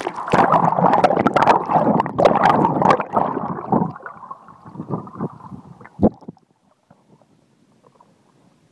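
Water rushing and gurgling around a camera held underwater beside a kayak, loud with many sharp clicks and splashes for the first four seconds and then dying away, with one sharp knock about six seconds in.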